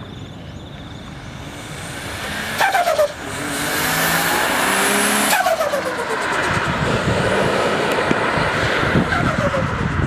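Turbocharged Nissan Skyline straight-six accelerating hard, the throttle lifted about two and a half and again about five and a half seconds in, the revs falling sharply each time. A loud choppy turbo flutter comes with the first lift.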